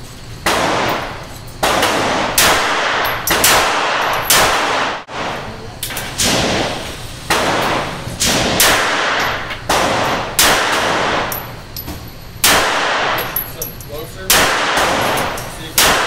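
.380 ACP pocket pistols, a Ruger LCP and then a Walther PK380, fired shot after shot at about one shot a second, each crack ringing on in the echo of an indoor concrete range.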